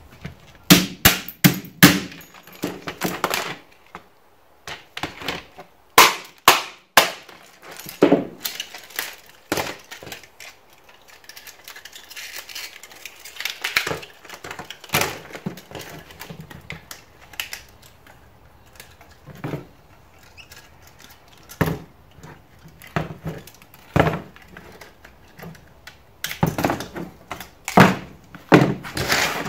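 Hammer blows breaking the plastic frame off a copper coil from a CRT TV on a metal-topped workbench: bursts of sharp knocks, a quick run at the start, more scattered ones later and another run near the end, with plastic cracking.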